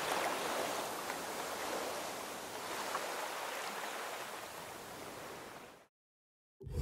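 Sea waves washing on the shore: a steady rushing noise that fades slowly and cuts off about six seconds in. After a short silence, music starts at the very end.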